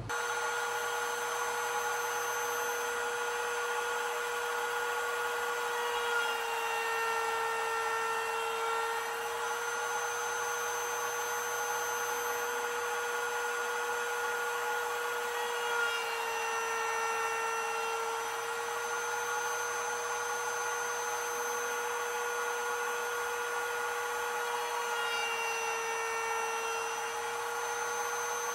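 Router spindle of an MPCNC CNC mill running steadily while milling a clamped block. Its whine sags slightly in pitch and recovers about every nine seconds as the cutter takes load on each pass.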